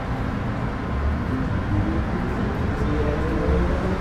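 Metro Cammell M-Train running on board, with the whine of its GEC GTO chopper traction equipment and motors rising in pitch as the train picks up speed over a steady low rumble of wheels on track.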